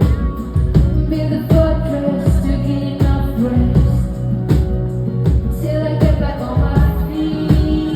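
Live synth-pop band music: a steady drum beat with bass and keyboard chords, and a female lead vocal singing over it.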